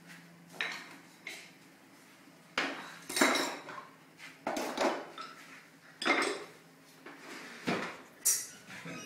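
Hard objects clattering and knocking together as they are handled and set down: a series of about seven sharp clatters, the loudest about three seconds in and about six seconds in.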